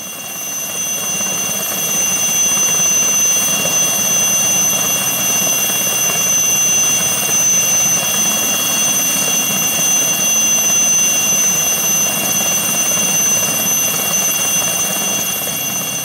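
Helicopter running steadily: a constant engine-and-rotor drone with a high, steady whine on top. It swells up over the first couple of seconds and holds level throughout.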